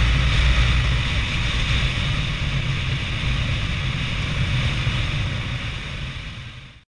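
Ride sound from a small two-stroke moped: wind rushing over the action camera's microphone with the engine running underneath. It fades out to silence near the end.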